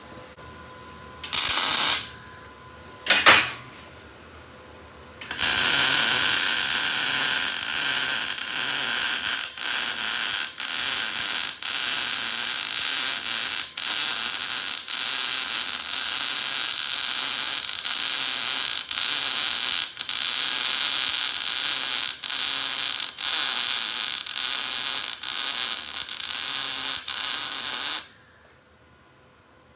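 Lincoln Electric Power MIG 211 MIG welding arc on steel left uncleaned: two short starts, then a continuous bead of welding for a little over twenty seconds with brief dips about once a second, cutting off near the end.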